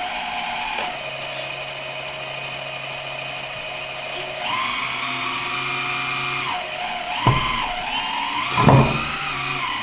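Hydraulic pump of a 1/14 Premacon Liebherr 956 RC excavator whining steadily, its note shifting several times as the boom and shovel are worked. Two clunks come near the end.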